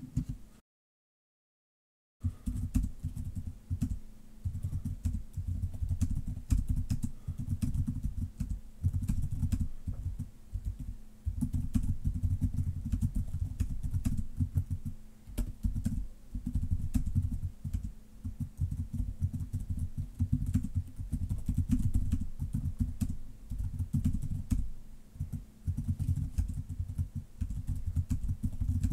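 Typing on a computer keyboard: rapid keystrokes with heavy low thuds, starting about two seconds in and going on in bursts with short pauses.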